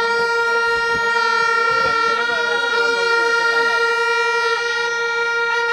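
A horn blown in one long, steady note, with faint crowd voices beneath it.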